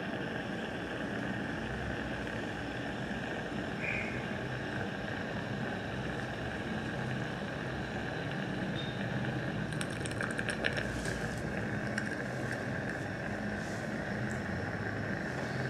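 Steady mechanical hum and hiss of dental surgical equipment running, with a patch of crackling clicks about ten to twelve seconds in.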